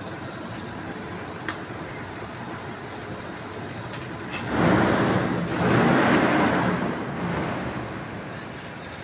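Lexus LX 570's 5.7-litre V8 idling steadily, then revved once about halfway through, swelling for a few seconds and settling back to idle. It runs smoothly after the ignition-coil repair, with a zero misfire count on all eight cylinders.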